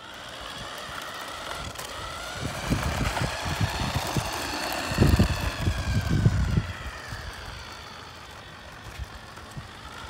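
Remote-control toy semi truck's electric drive motor and gears whining as it drives across concrete, the pitch rising slowly and then falling. A few low rumbles and knocks come in around the middle.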